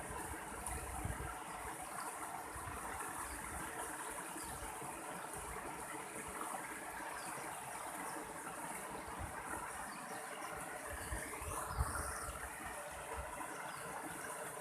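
Mountain stream water flowing and splashing steadily, with a brief low thump near the end.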